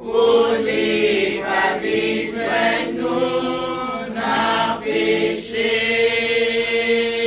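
Congregation singing a hymn together, in short phrases and then one long held note from about five and a half seconds in.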